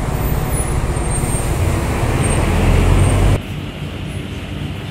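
Street traffic noise: a passing vehicle's low engine rumble swells, then cuts off suddenly about three and a half seconds in, leaving a quieter traffic hum.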